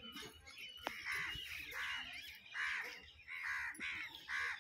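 A crow cawing over and over, about five harsh caws spaced a little under a second apart.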